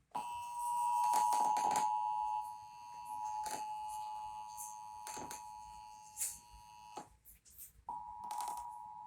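Emergency Alert System two-tone attention signal, a steady dual-pitched tone. It cuts off about seven seconds in and starts again about a second later, with a few faint clicks.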